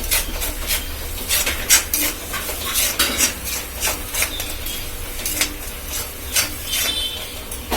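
A spoon stirring and scraping a ground masala paste as it fries in oil in a pan, with irregular scrapes and clinks over a light sizzle. The paste, with turmeric just added, is being sautéed.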